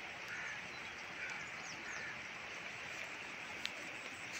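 Steady rushing noise of floodwater spreading across fields, with a few faint short bird chirps in the first second and one sharp click near the end.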